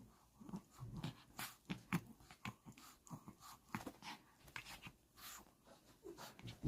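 A Chihuahua play-fighting with a person's foot: a quiet, irregular string of short dog sounds, about one or two a second, with a sharper one just before the end.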